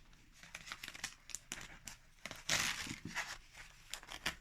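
Crinkling and tearing sounds from something being handled, made of many small crackles, with a louder rustle about two and a half seconds in.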